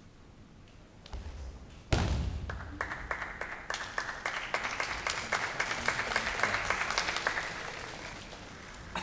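A sharp thud about two seconds in, then a crowd applauding and clapping in a large hall for about five seconds, tapering off near the end.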